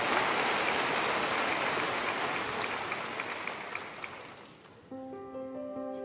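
Applause, an even crackling clatter of clapping that slowly fades out. About five seconds in, slow keyboard music with sustained notes begins.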